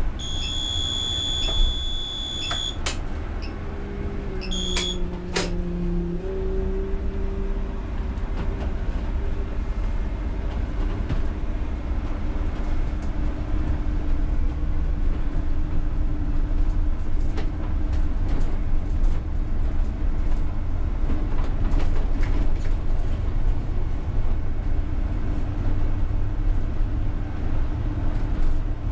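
UTTZ-6241.01 (MAZ-203T) trolleybus driving, heard from the cab: steady low rumble of the running gear and road with a steady electric hum from the drive. A high electronic beep sounds for about two seconds near the start, with a short repeat around five seconds, along with a few sharp clicks.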